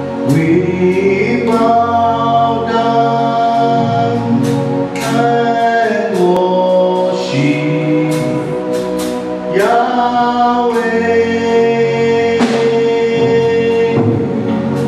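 Gospel choir of mixed men's and women's voices singing in harmony, holding long chords that change every few seconds.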